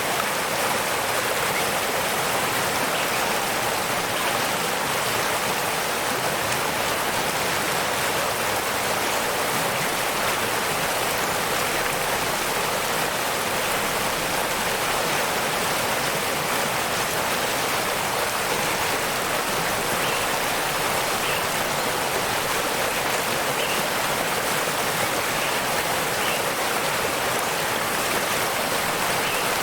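Waterfall: water falling and rushing as a steady, even hiss with no breaks.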